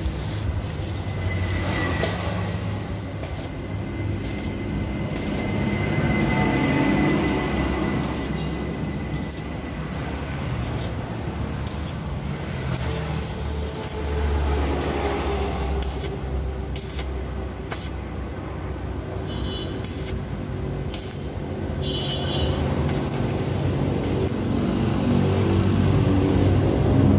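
Electric arc welding on a steel exhaust pipe: the arc crackling and spitting in irregular short snaps over a steady low hum.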